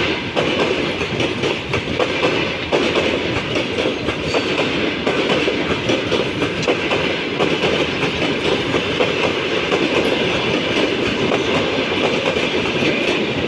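Passenger train coaches rolling past at speed, their wheels clattering over the rail joints with many sharp clicks over a steady rumble as the train accelerates away.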